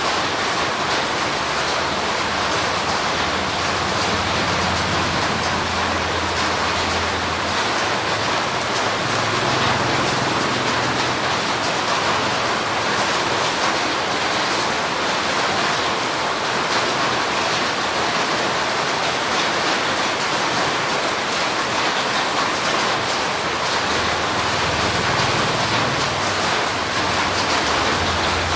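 Steady heavy tropical rain, an even unbroken hiss of falling water.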